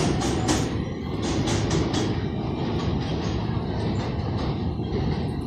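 New York City subway train on elevated track pulling away: a steady rumble with a run of wheel clacks over the rail joints in the first two seconds.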